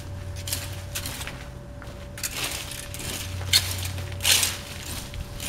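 A rake scraping and dragging debris across a wet driveway and bark mulch in short, irregular strokes, two of them sharper about three and a half and four and a half seconds in.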